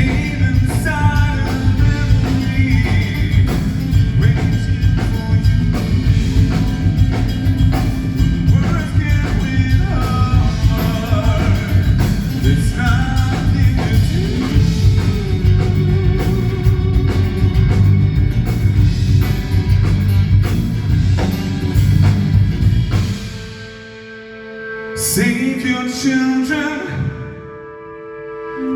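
Progressive rock band playing live, drums, bass and guitars at full volume. About three-quarters of the way through it drops to a quiet, sparse passage of a held note and a few single notes, and the band comes back in right at the end.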